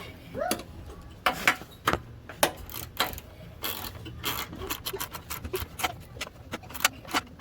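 Hand tools and metal parts clicking and knocking irregularly, many sharp clicks at uneven spacing, with a short vocal sound about half a second in.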